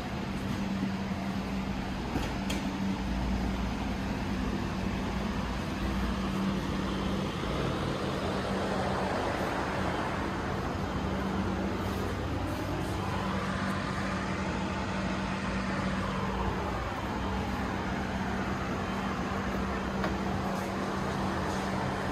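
Steady mechanical hum with a constant low tone under even noise.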